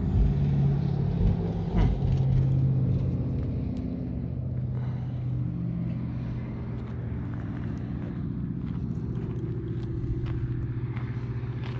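A steady low engine hum, with light footsteps crunching on desert gravel in the second half.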